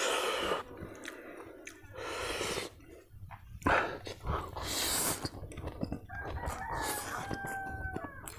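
Noodles being slurped in several short noisy bursts. A rooster crows once, a held call of about two seconds starting about six seconds in.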